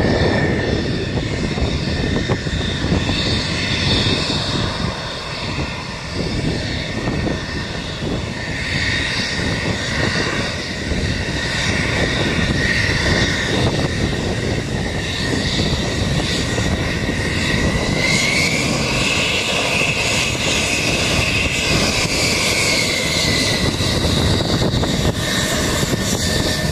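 F-16 fighter jet taxiing on the flight line, its jet engine running as a steady high whine over a broad rumble. The whine rises in pitch about eighteen seconds in and falls back a few seconds later.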